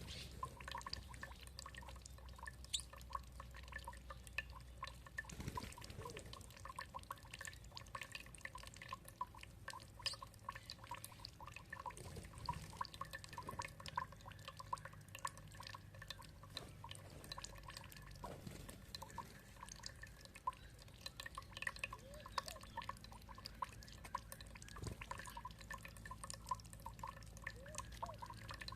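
Water dripping and trickling in a dense, irregular run of small plinks and splashes.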